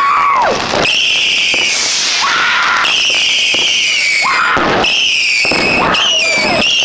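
Fireworks going off at close range: a series of shrill whistles, each about a second long and falling slightly in pitch, with shorter gliding whistles, sharp bangs between them, and the hiss and crackle of spark fountains underneath.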